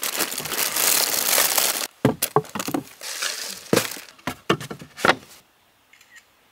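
Plastic packaging crinkling and rustling for about two seconds, then a string of knocks and clunks as packaged food, cans and bottles are handled and set down, stopping about five seconds in.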